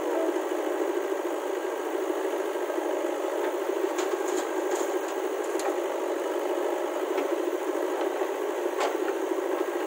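JCB 3DX backhoe loader's diesel engine running steadily while it works the backhoe arm, swinging a bucket of mud over a tractor trolley. A few short metallic clicks or knocks come about four to six seconds in and once more near the end.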